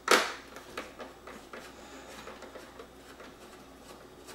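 A screwdriver turning a screw out of the plastic housing of a Roomba automatic clean base: a brief loud scrape near the start, then a run of faint small clicks and scratches as the screw is backed out.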